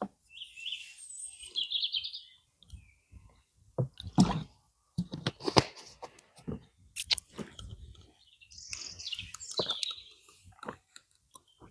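Plastic LEGO bricks being handled and pressed together: a few sharp clicks, with short high-pitched rattling sounds near the start and again towards the end.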